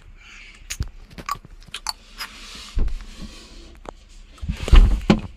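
Close handling noise of a phone being moved and rubbed around: scattered clicks and short rustles, with a louder muffled thump and rubbing about five seconds in.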